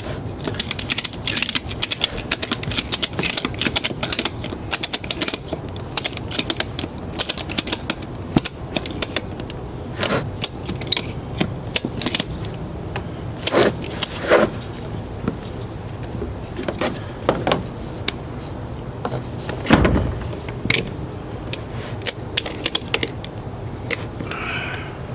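Ratchet strap's ratchet clicking as it is cranked tight around a small tire to push the bead back toward the rim. Quick runs of clicks come first, then scattered clicks and a few louder knocks from handling.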